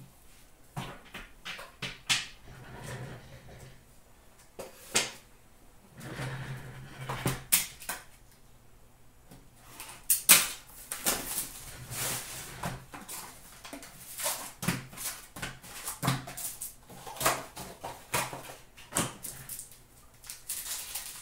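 Hands opening a cardboard box of hockey card packs and taking the packs out: irregular cardboard clicks, scrapes and foil-pack rustles, the sharpest about halfway through.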